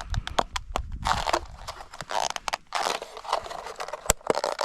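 Irregular sharp clicks and crackling, scraping rustles, close by, with a brief louder knock about four seconds in.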